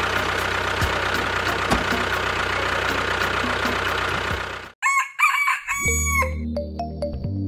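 A model tractor's motor running steadily, with a fast regular ticking over a low hum, for about four and a half seconds before it cuts off. Then a short rooster crow sounds, and low steady music tones come in near the end.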